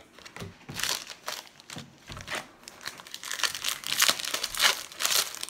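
Trading card pack wrapper crinkling and tearing as it is pulled open by hand, in quick irregular crackles that are loudest about four to five seconds in.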